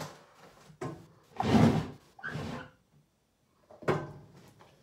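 Knocks, scrapes and rustles of things being handled at a bathroom counter: several separate clunks, the loudest about one and a half seconds in.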